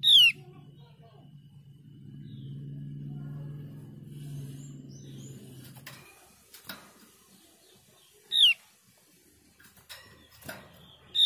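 Javan grey-throated white-eye (opior jawa) giving three loud, short calls, each sweeping down in pitch: one right at the start, one about eight seconds in, one at the end. A low murmur sits under the first half, and a few faint taps follow later.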